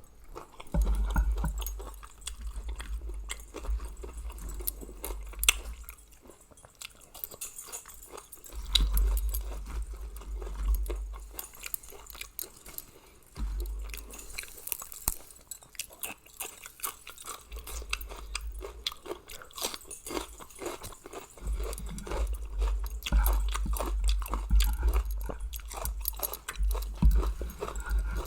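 Close-miked chewing of spicy Thai seafood salad (salmon, squid, shrimp), with wet mouth clicks, coming in spells separated by short pauses.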